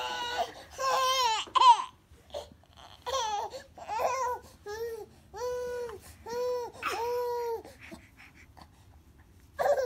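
A baby crying in a series of short, high-pitched wails, four of them in an even rhythm in the second half, then falling quiet near the end.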